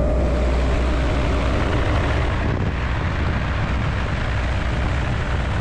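Helicopter in flight: steady, loud rotor and engine noise, with wind rushing through the open cabin door.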